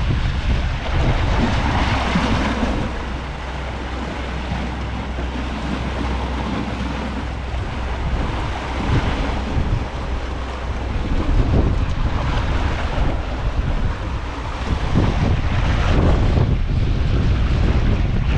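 Strong wind buffeting the microphone in gusts, with sea surf washing against the rocks beneath.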